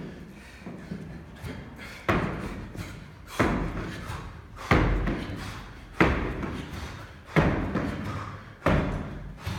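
An athlete's feet landing heavily on a plyo box after each jumping pull-up. There are six thumps in a steady rhythm, about one every 1.3 seconds.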